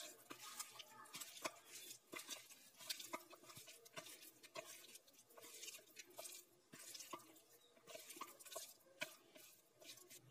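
Faint, irregular wet squelching and small crackles of a hand mixing boneless chicken pieces through a thick egg-and-spice marinade with crushed cornflakes in a bowl.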